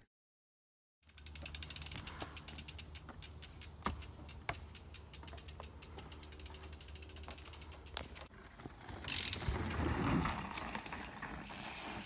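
Mountain bike's rear freehub clicking rapidly as the wheel rolls without pedalling while the bike is wheeled along, the ticks fast at first and then thinning out. About nine seconds in a louder rush of noise takes over for a couple of seconds.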